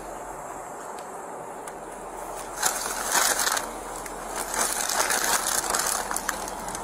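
Thin plastic shopping bag crinkling and rustling in irregular bursts as a gloved hand rummages through it, starting about two and a half seconds in.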